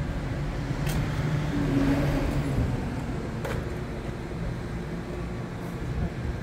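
Steady low rumble of urban outdoor background noise, like distant road traffic, with two short clicks, about a second in and midway.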